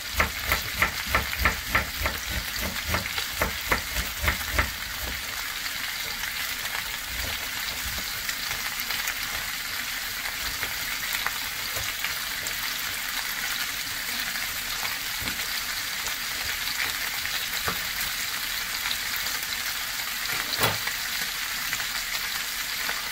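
Boiled beef tripe sizzling as it fries in oil and tomato paste in a pan. For the first five seconds a wooden spatula knocks and scrapes against the pan about three times a second as it is stirred; then a steady sizzle, with one more knock a few seconds before the end.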